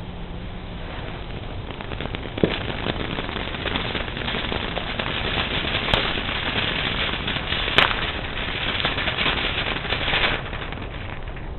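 Consumer fireworks crackling: a dense run of rapid small pops for about eight seconds, with a few louder bangs among them, then stopping abruptly.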